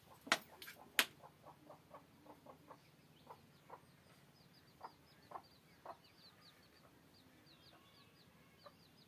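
Chickens clucking faintly in a series of short calls, with small birds chirping quickly and high above them; two sharp clicks sound within the first second.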